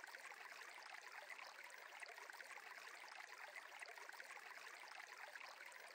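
Near silence with a faint, steady rush of flowing water: a stream ambience bed.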